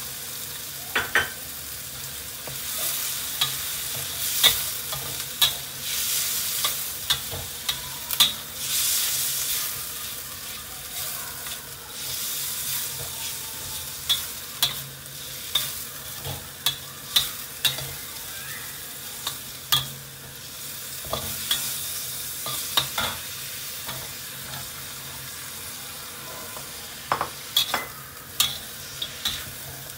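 Stir-frying in a black steel wok: minced pork and dried prawns sizzle with a steady hiss while a metal spatula scrapes and strikes the wok in irregular sharp taps. By the end, strips of green marrow (hairy gourd) are being tossed in the wok.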